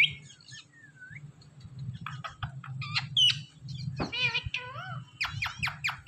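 Rose-ringed (Indian ringneck) parakeets calling: scattered short, sharp chirps and squawks, a longer wavering call about four seconds in, and a quick run of short calls near the end.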